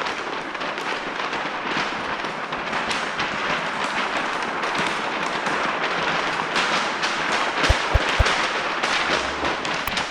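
Paint protection film and its plastic backing liner crinkling and crackling as the sheet is handled and rolled up, with two dull bumps about eight seconds in.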